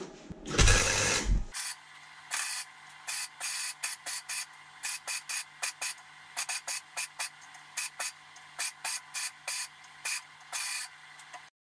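Electric arc welder laying short welds one after another, each a brief crackling hiss, about two or three a second, over a faint steady hum. A louder noise about a second long comes first, and the sound cuts off abruptly near the end.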